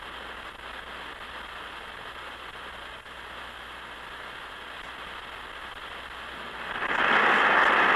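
Hiss and static from AM radio reception, with no programme audible over it. The noise swells louder about two-thirds of the way through.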